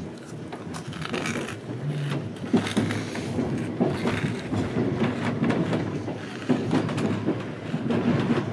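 Passenger train running through a station yard, heard from inside the carriage: a steady rumble of wheels on rails with irregular clatter and knocks as the wheels cross joints and switches.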